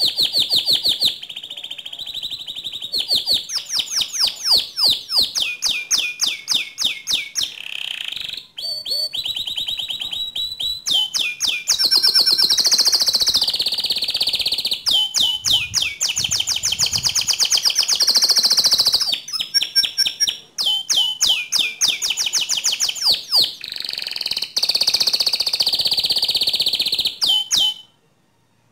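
Domestic canary singing a long, loud song of rapid trills and rolls with short breaks between phrases; it stops abruptly near the end.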